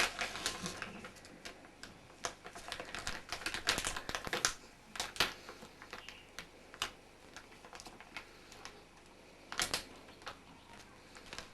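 Irregular sharp clicks and taps of a small object being handled, dense through the first half and again in a cluster about nine and a half seconds in.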